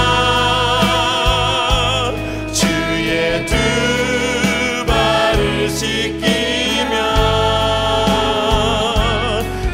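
Live worship-band music: an Alleva Coppolo LG5 five-string electric bass, fingerpicked, holds long low notes that change every second or two under voices singing with vibrato.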